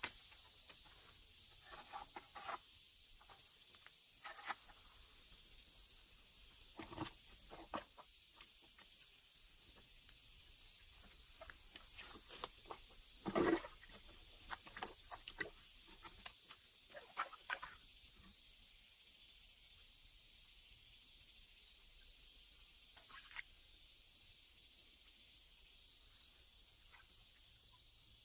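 An insect calling with a short, high chirp repeated about once a second. Scattered clicks and knocks sound over it for the first two-thirds, the loudest about halfway through.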